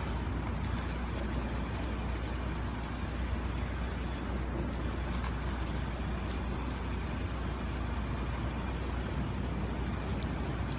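Steady outdoor background noise: a constant low rumble under an even hiss, with no clear events.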